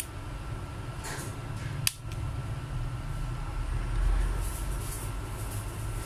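Steady low background rumble with handling noise from a phone's plastic housing being pried apart: faint ticks, then one sharp plastic click about two seconds in as a clip snaps free.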